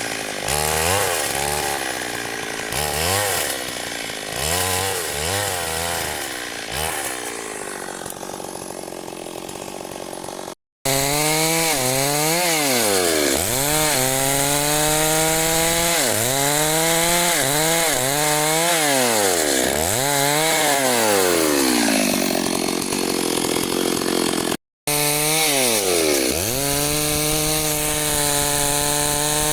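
Two-stroke chainsaw cutting wood, its engine pitch dropping each time the chain bites into the cut and climbing back, over and over. The sound cuts out abruptly twice and is louder after the first break.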